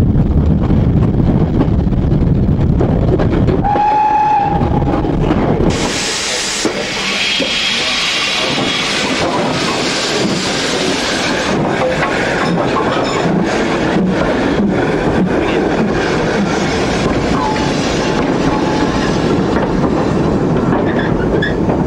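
Steam train running on the track with a heavy rumble, and a short whistle about four seconds in. Then a steam locomotive lets off a loud hiss of steam. Irregular clanks and knocks follow as the engine and its goods wagons move along.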